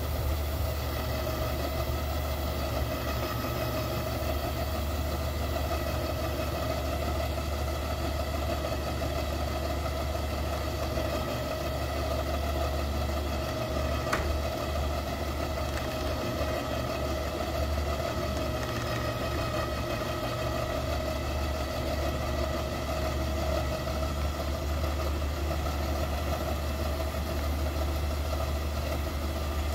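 Steady motor hum, a low drone with a constant mid-pitched tone over it, as a dirt bike is drawn up onto a truck deck by its electric winch; a light click about halfway through.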